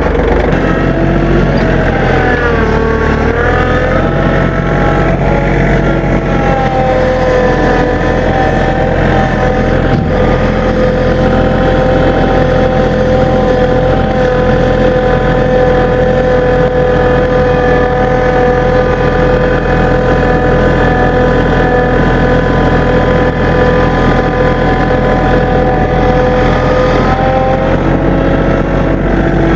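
Tractor engine running steadily. Its pitch dips and rises about two to four seconds in, then holds at higher revs until near the end, when it drops back down.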